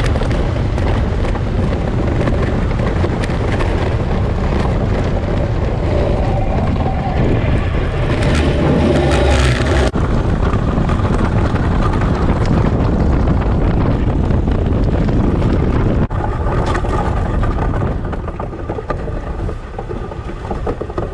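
Ice boat running fast over lake ice: a steady rush of wind noise on the microphone over the rumbling hiss of the runners on the ice. It gets somewhat quieter in the last few seconds.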